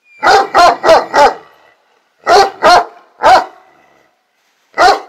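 A large Anatolian shepherd (Kangal-type) dog barking: four barks in quick succession, then three more, then a single bark near the end.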